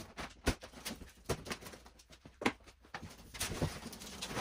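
Plastic packing straps being worked loose and pulled off a large cardboard box: a string of sharp clicks and snaps, then a longer scraping rustle about three and a half seconds in as a strap slides out from under the box.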